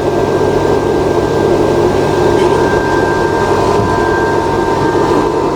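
Solar charge controller's cooling fan running steadily, with a low electrical hum and a thin, steady high whine from the power equipment.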